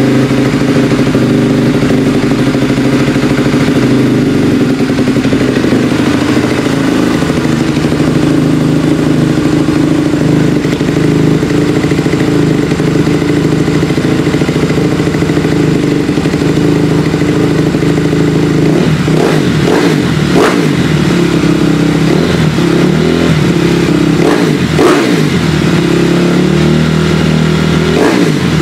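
2012 Honda CRF250R's single-cylinder four-stroke engine idling steadily through its FMF Factory 4.1 exhaust, with several quick throttle blips in the last third.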